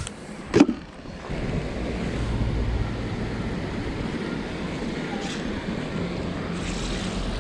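A single sharp knock, then a steady low rumble.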